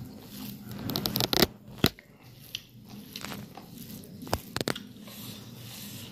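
Eating sounds from dried beef and rice eaten by hand: chewing and biting, with fingers tearing and mixing the food on the plate. A few sharp clicks; the loudest two come about a second and a half and two seconds in.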